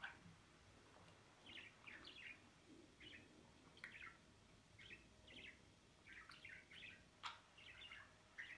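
Faint chirping of a budgerigar: short, high chirps in small clusters, coming every second or so. There is one sharp click about seven seconds in.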